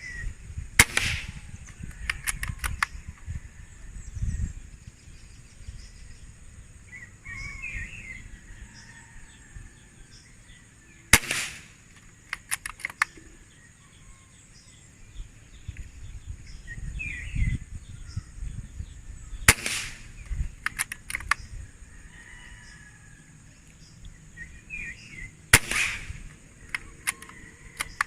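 Gamo Chakal PCP air rifle firing four single shots several seconds apart, each sharp crack followed by a short run of quick clicks. A steady high insect drone and a few bird chirps run underneath.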